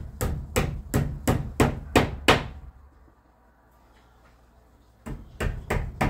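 Rhythmic knocking, sharp strikes about three a second, in two runs separated by a pause of about two and a half seconds.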